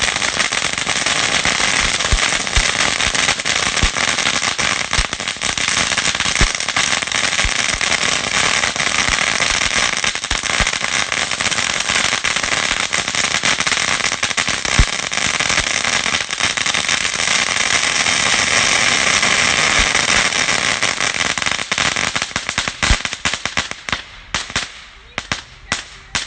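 Fireworks crackling: a dense, rapid stream of small sharp pops that thins out to scattered separate pops near the end.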